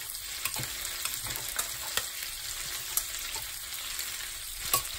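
Chicken pieces frying in their own rendered fat in an uncovered metal roasting pan: a steady sizzling hiss with scattered crackles and pops, a lot of noise.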